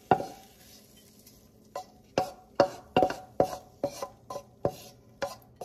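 Wooden spatula knocking against a nonstick frying pan as fried scallions and ginger are scraped out of it. One knock at the start, then about ten quick knocks, two to three a second, each with a short ring.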